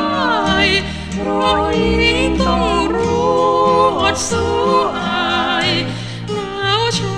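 Thai song played from a vinyl record: a woman sings drawn-out notes with a wavering vibrato over a band with a steady bass line.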